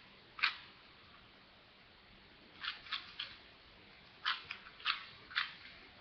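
A 4x4 Rubik's cube, not yet lubricated, being turned by hand: short plastic clacks, one about half a second in, three close together around the middle, and four more near the end.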